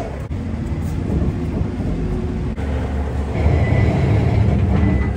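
Forklift engine running, a steady low rumble that grows louder about three and a half seconds in, with a faint high whine from then on.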